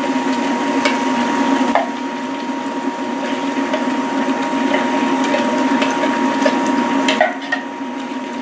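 Thick canned coconut milk poured and dropping into a pot of curry paste cooking on high heat, over a steady sizzling bubble, with a few light knocks.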